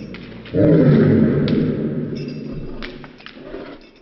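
A dog's bark slowed down into one long, deep roar-like sound, starting about half a second in and fading away over the next few seconds, with a few sharp clicks over it.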